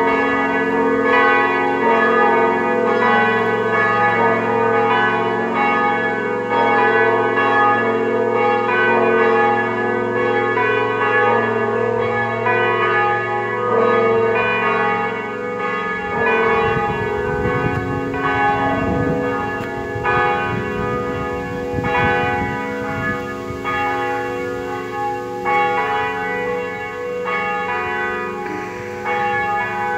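Grassmayr-cast church bells tuned B♭, E♭, G♭ and A♭, swinging and ringing together in a full peal, their strikes overlapping continuously.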